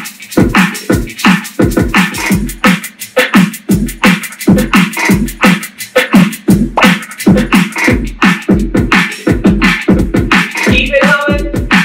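Dance-workout music with a steady, driving beat and a short held note near the end.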